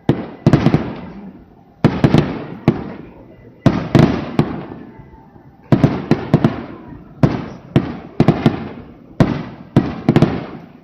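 Aerial firework shells bursting in a rapid-fire finale barrage: a dozen or so loud booms, many in quick clusters of sharp cracks, each trailing off in a rumble before the next.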